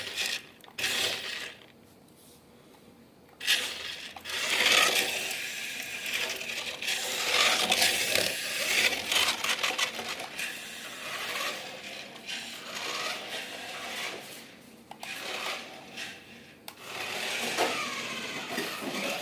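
Toy RC car's small electric motor whirring as it drives, rising and falling in spurts, with a few light knocks. It stops for about a second and a half near the start.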